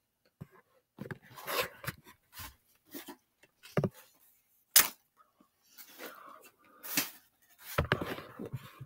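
A man's breathing and mouth noises between belches: scattered short breaths and clicks, with a brief voiced grunt about four seconds in and a sharp click just after.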